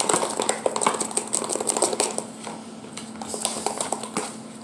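Clear lidded plastic tub being shaken by hand to mix slime ingredients: a fast run of plastic clicks and rattles that thins out and gets quieter after about two seconds.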